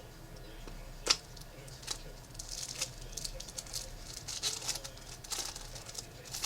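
Trading card packs being opened and handled: a sharp snap about a second in, then a run of quick crinkling and rustling of pack wrappers and cards.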